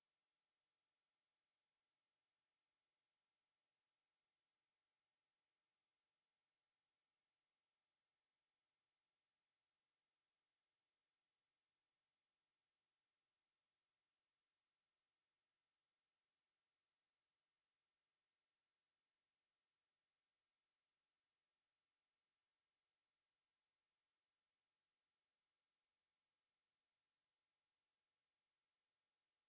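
A pure 7224 Hz sine-wave test tone, a single steady high-pitched whistle held at one pitch and level.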